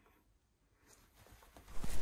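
Near silence for about a second, then a few faint clicks and a rustling noise that rises near the end, like clothing and hands moving against the microphone.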